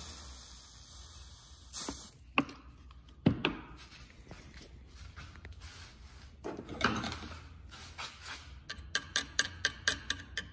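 Water poured from a plastic bottle onto hot, freshly brazed cast aluminum, sizzling in a hiss that fades over the first two seconds as the braze is quenched to test whether it holds. Scattered knocks follow, then a run of quick ticks near the end.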